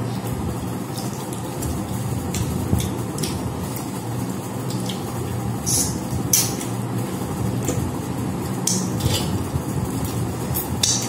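Fingers working food on metal plates during a meal eaten by hand, with scattered sharp clicks and clinks, over a steady low hum.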